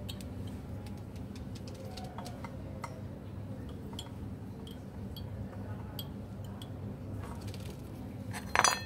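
Scattered light metallic clicks and clinks of hand tools and brake parts being handled, with a louder clatter near the end, over a low steady hum.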